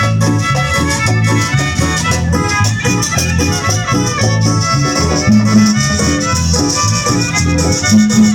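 Instrumental passage of a cumbia: a steady, pulsing bass line under a melody, with a shaker keeping time.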